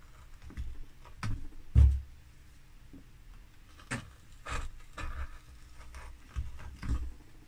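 Hand carving chisel cutting into linden wood: a string of short, irregular cuts and knocks, the loudest about two seconds in.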